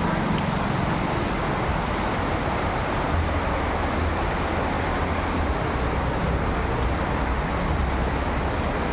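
Heavy rain pouring onto a street, a steady hiss, with a low rumble of traffic underneath.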